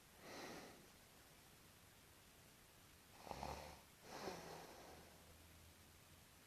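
A person snoring faintly: one breathy snore about half a second in, then a louder snore with a low rattle around three seconds in, followed straight away by a long breathy exhale.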